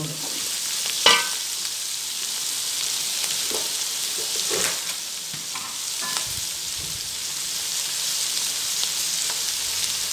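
Chopped onions, shallots, green chillies and coconut pieces sizzling steadily in hot coconut oil in a wide metal uruli as they begin to sauté. A wooden spatula stirs them, knocking against the pan a few times, most sharply about a second in.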